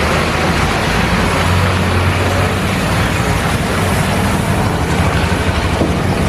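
Heavy tanker truck's engine running as it drives slowly along a rough road, under steady road-traffic noise. The low engine hum swells about two seconds in.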